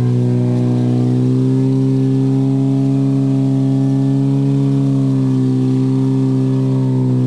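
Ford Fiesta crosscar's engine held at steady revs, its pitch drifting slightly up and down.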